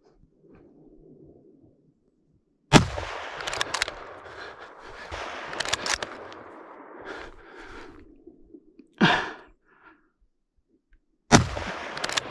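Two gunshots about eight and a half seconds apart, each a sharp crack followed by several seconds of ragged noise. A shorter burst of sound falls between them.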